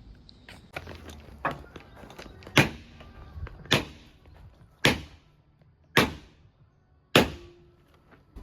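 A series of about seven heavy strikes, roughly one a second, the later ones the loudest.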